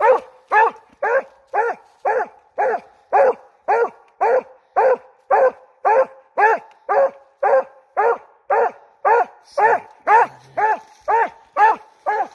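Redbone coonhound's tree bark: a steady run of short barks about two a second, each dropping in pitch. This is a coonhound baying treed, the sign of a raccoon up the tree.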